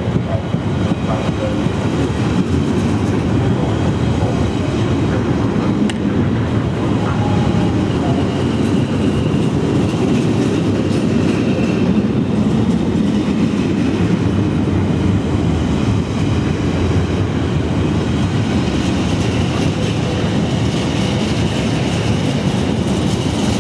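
Freight train of container flat wagons passing close by, a steady, continuous rumble of wagon wheels on the rails.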